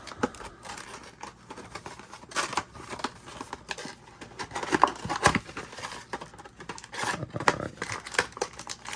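A trading-card mega box being opened by hand: plastic wrapping crinkling and tearing and cardboard rustling, with irregular clicks and scrapes. The handling comes in uneven bursts, busiest about a third, half and three quarters of the way through.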